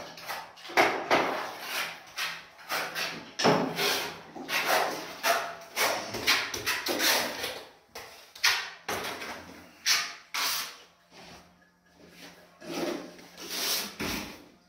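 A hand trowel scraping mortar across a wall in quick, repeated short strokes, with a quieter spell about two-thirds of the way through.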